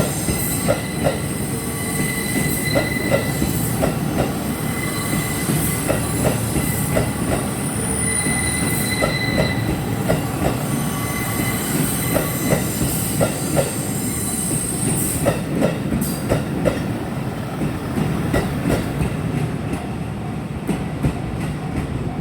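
KiYa E195 long-rail transport train running past over a level crossing: wheels clacking over rail joints about once or twice a second over a steady rumble, with a high-pitched squeal coming and going. The sound eases off in the last few seconds as the train clears.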